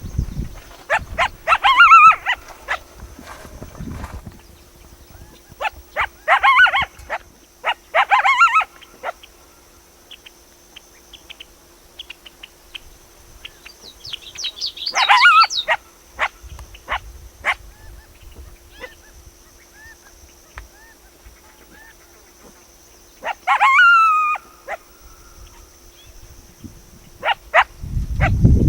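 Coyotes yipping and barking in clusters of rapid, high, wavering calls a few seconds apart, with scattered single yips between. A steady low tone, a binaural-beat track, runs underneath.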